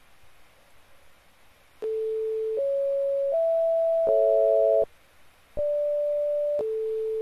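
Playback of a recording made with ETComposer, a browser tone generator: pure electronic tones. About two seconds in, three notes step upward one after another, then sound together as a chord and cut off. After a short gap, single notes start again and change pitch.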